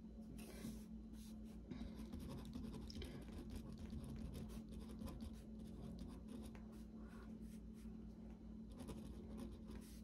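Pen scratching on paper as words are written by hand, in quick irregular strokes, over a faint steady low hum.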